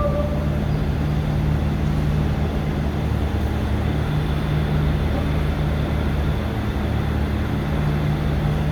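Large four-sided planer (moulder) running, a steady low mechanical hum with constant pitch from its motors and cutter heads.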